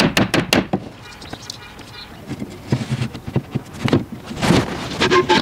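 Hammer tapping quickly on wood, about six light blows in the first second, seating the mortise-and-tenon joints of a nail-free wooden TV stand. Then scattered wooden knocks and scraping as the frame is shifted and handled, loudest near the end.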